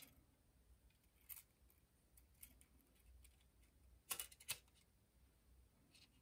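Faint clicks and taps of a metal shield plate being pressed and snapped onto an iPhone 6 Plus display assembly, the loudest two close together about four seconds in.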